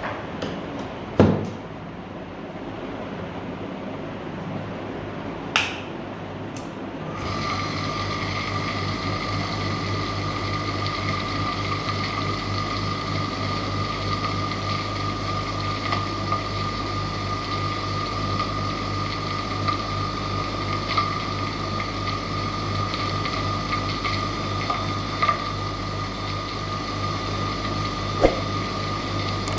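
An electric motor switches on about seven seconds in and runs steadily, with a low hum under a thin high whine. Before it starts there are a couple of sharp clicks or knocks.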